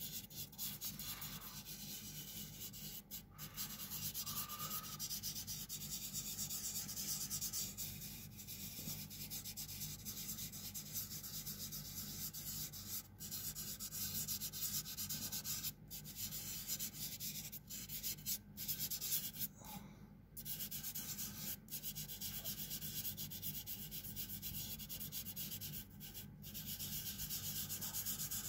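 Hand and fingers rubbing back and forth over pastel on paper, blending the colour. A steady dry rubbing with several short pauses.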